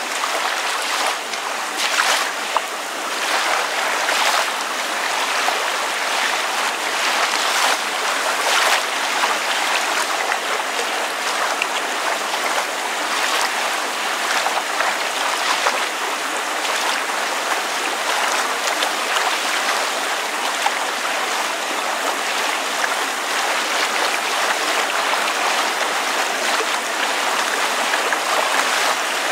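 Water lapping with rain falling: a steady splashing hiss, dotted with many small splashes and drips.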